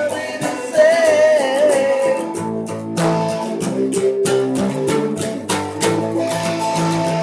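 Acoustic guitar and electric guitar playing a song together. A wavering, held melody note carries the first couple of seconds, then strummed chords fill in from about three seconds in.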